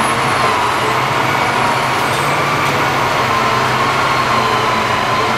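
Demolition excavator's diesel engine running steadily under load while its attachment works a corrugated metal wall.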